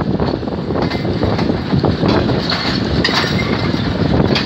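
Passenger train coaches running through a junction: a continuous rumble of steel wheels on the rails with frequent clicks and clatter as the wheels cross rail joints and pointwork.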